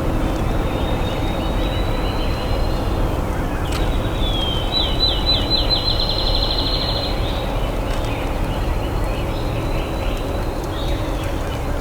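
A songbird sings one rapid trill, a few sliding notes that speed into an even run, lasting about three seconds, over steady low background noise.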